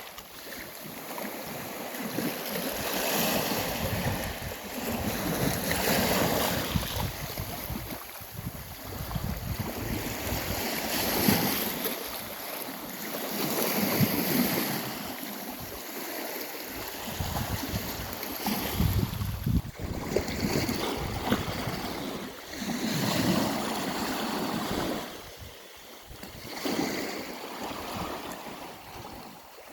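Sea waves breaking and washing in, the surge swelling and falling every few seconds, with wind gusting on the microphone.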